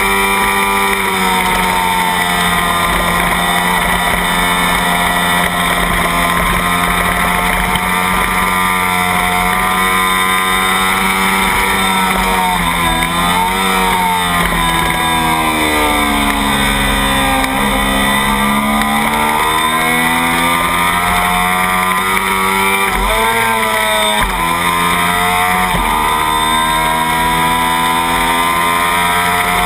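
Kawasaki Ninja 250 race bike's parallel-twin engine running at high revs, heard onboard over steady wind rush on the microphone. Partway through, the pitch drops in quick steps as the rider downshifts and sinks low. It then rises again through the gears, with another gear change about three-quarters of the way in.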